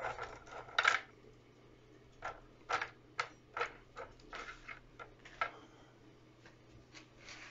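A bundle of wooden skewers clicking and tapping against each other and the bowl as they are laid into water to soak: about a dozen light, irregular clicks.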